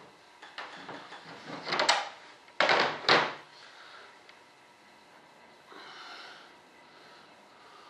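Rough scraping and handling noises as a small tool works epoxy and cotton flock into the foam of a composite rudder half. The scrapes build over the first two seconds, two louder ones follow about three seconds in, and then it quietens to a faint scrape.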